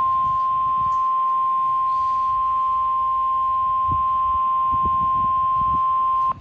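NOAA Weather Radio warning alarm tone: a single steady 1050 Hz tone received over a weather radio, signalling that a warning message follows. It cuts off sharply just before the end.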